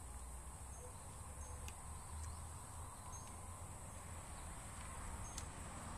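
A steady high-pitched insect drone, with a few faint short clicks as a small carving knife cuts into a white oak branch.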